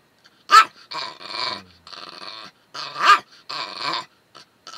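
Old Pomeranian 'chatting': a run of drawn-out vocalizations, with two short, sharp yaps about half a second and three seconds in. It is playful 'talking' back to her owner, not aggression.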